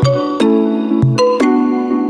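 Short musical jingle of bright keyboard notes: several chords struck in quick succession and left ringing, beginning to die away near the end.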